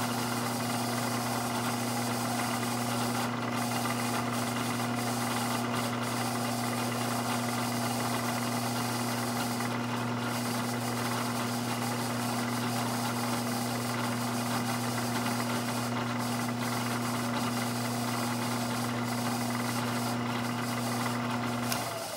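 Milling machine spindle running at 1,000 RPM, with a steady motor hum and drive noise, while a Starrett 827B edge finder spins in the collet. The spindle is switched off near the end and the hum cuts off.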